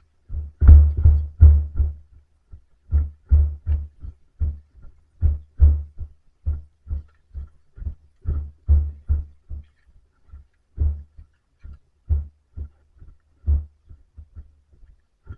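Running footsteps: a quick, uneven series of dull low thumps, about two to three a second. They are loudest about one to two seconds in and grow fainter toward the end.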